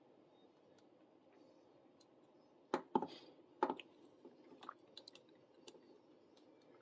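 Plastic action figure being handled: a few sharp plastic clicks and taps, loudest in a cluster a little before the middle, with lighter ticks after, over faint room hiss.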